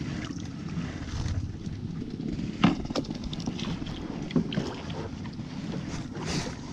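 Wind rumbling on the microphone and water sloshing around a small boat as a long-handled dip net is pushed through the water. A few short knocks come through, the loudest about two and a half seconds in.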